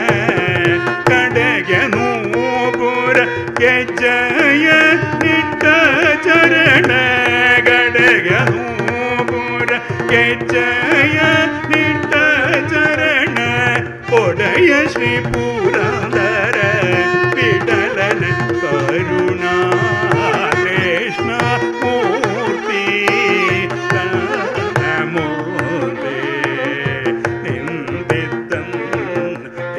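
Carnatic classical music: a male voice singing with violin accompaniment and mridangam drum strokes.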